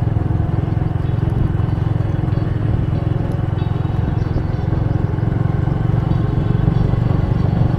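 Steady rumble of riding along a road on a motorbike: engine and wind noise on the microphone, with no break or change.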